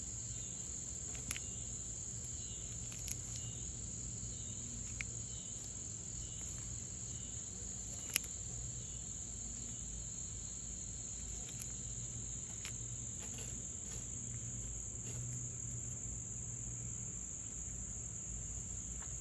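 Steady, high-pitched insect chorus, unbroken throughout. A few sharp clicks cut through it in the first half, the loudest about eight seconds in.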